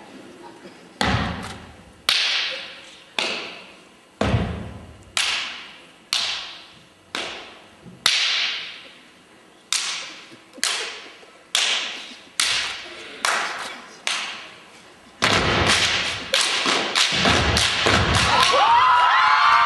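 Step team stomping and clapping in unison on a stage, single sharp hits about once a second, each ringing out in the hall. About 15 seconds in they break into a fast flurry of stomps and claps, and the crowd starts cheering near the end.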